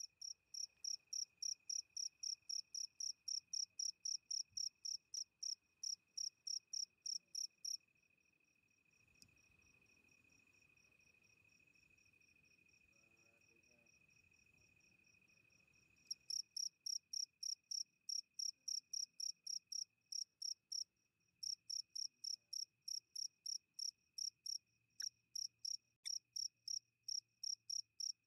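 An insect chirping in a fast, even rhythm, about four short high chirps a second. It falls silent for several seconds about a third of the way in and picks up again, over a faint, steady, high continuous tone.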